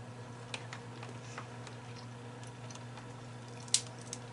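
Small clicks and cracks of crab-leg shell being picked at and broken by hand, with a sharper crack near the end, over a steady low hum.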